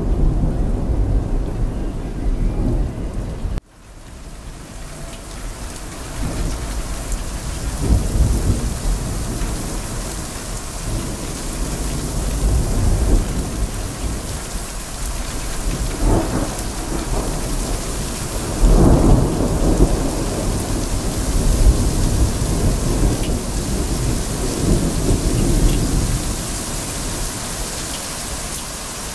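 Heavy rain pouring steadily, with several low rolls of thunder, the strongest about two-thirds of the way through. About three and a half seconds in, the whole sound drops out abruptly for an instant and fades back up, like a splice in the looped recording.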